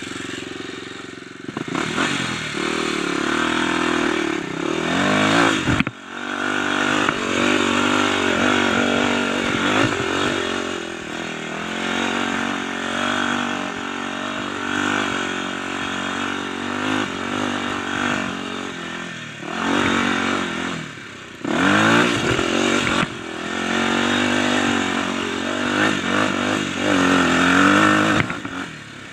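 Dirt bike engine revving up and down over and over as the rider opens and closes the throttle on tight singletrack, the pitch rising and falling with each burst.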